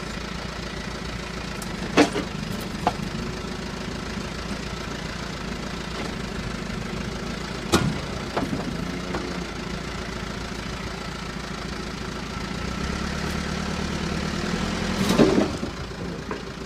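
Backhoe's diesel engine running steadily, with several sharp knocks from the machine's work; the engine gets louder near the end, where a cluster of knocks is the loudest moment.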